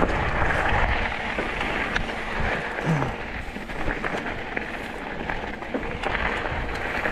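Mountain bike rolling along rocky dirt singletrack: a steady rushing crunch of the tyres on loose dirt and gravel, with a few light clicks from the bike.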